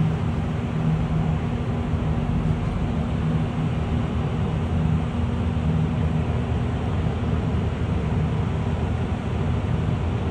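Excavator's diesel engine running at a steady speed, a constant low drone.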